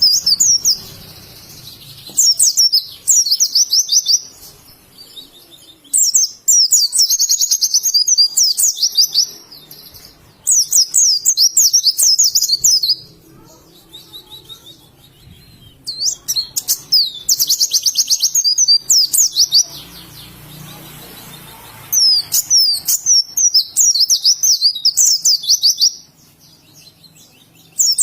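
White-eye (pleci) singing: repeated bursts of rapid, high-pitched twittering, each a few seconds long, with short pauses between them.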